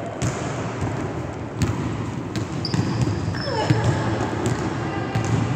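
Volleyball being hit in an echoing gym: several sharp slaps of hands and arms on the ball, with a thud of the ball on the hard court floor, spread through a rally.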